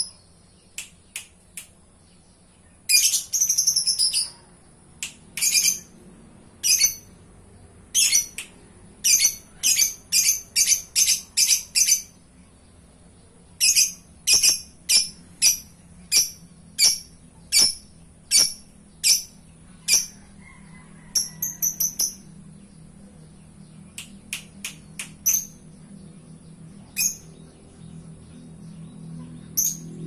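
Fischer's lovebird giving sharp, high-pitched chirping calls: a quick run of calls about three seconds in, then single chirps coming about one to two a second, thinning out to scattered calls near the end.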